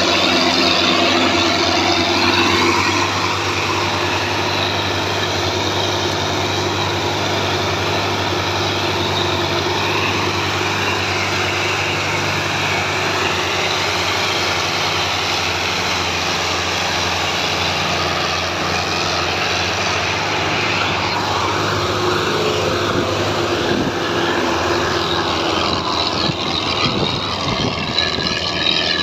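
Belarus tractor diesel engines running hard under heavy load, pulling a loaded sugarcane trolley: a steady, loud engine drone.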